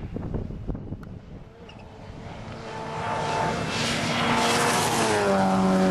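Rally car engine at full speed, growing steadily louder over several seconds as it approaches, then falling in pitch as it passes close by near the end. Wind on the microphone at first.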